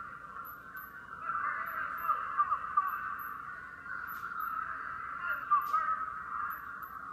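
Spectators and coaches shouting and yelling at a wrestling match, heard thin and tinny through a television's speaker, with a couple of louder shouts partway through.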